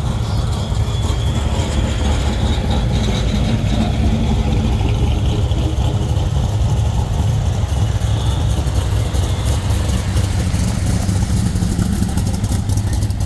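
Engine of a 1955 Chevrolet gasser idling with a loud, steady low rumble as the car rolls slowly past at walking pace.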